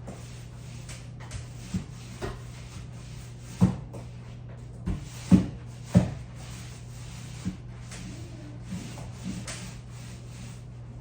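A string of irregular sharp knocks and taps, the loudest a little past the middle, over a steady low hum.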